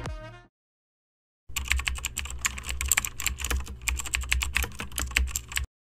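Computer keyboard typing sound effect: a rapid, irregular run of key clicks for about four seconds, accompanying on-screen text being typed out. The tail of background music fades out just before it.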